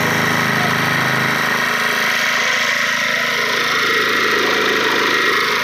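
A small engine running steadily. Its deeper part drops away after about a second, while a steady high whine carries on.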